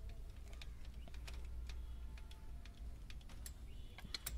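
Faint, irregular metallic clicks of a screwdriver working the adjuster of a Toyota Corolla's rear drum brake, backing the brake shoes off so the drum will fit. Two sharper clicks come near the end.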